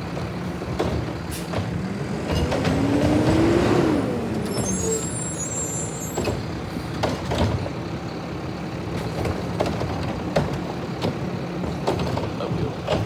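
Garbage truck's diesel engine running with a steady hum, revving up and back down about two to four seconds in as its hydraulics work, with scattered metal clanks and knocks from the arm and bin. A short hiss of air comes about five seconds in.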